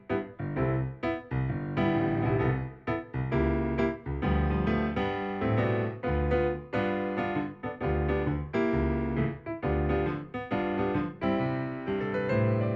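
Piano music: chords and notes played at a steady, flowing pace with a full bass.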